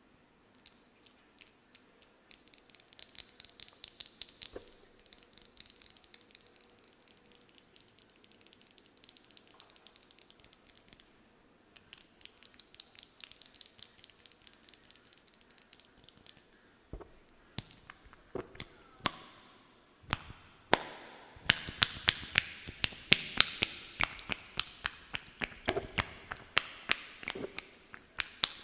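Close-miked ASMR tapping: rapid fingernail taps and clicks in quick irregular runs, growing louder and fuller about halfway through.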